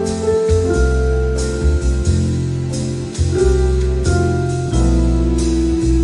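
Instrumental background music: held melody notes over a steady bass line, with light regular percussion hits.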